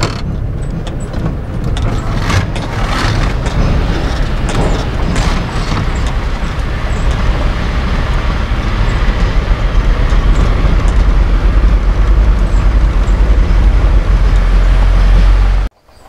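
Iveco Daily motorhome driving up an unpaved road, engine and road noise with a heavy low rumble that grows louder in the second half, then cuts off abruptly near the end.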